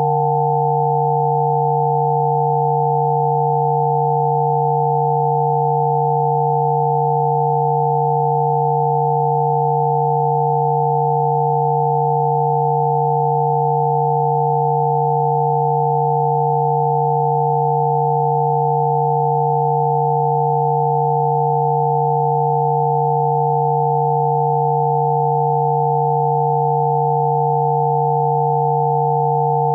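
Several steady electronic sine tones sounding together without change: a low hum with higher pure tones stacked above it. These are Rife therapy frequencies for sneezing, played as audio.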